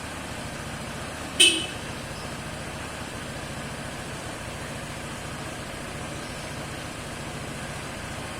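A vehicle horn gives one short toot about a second and a half in, over an engine idling steadily.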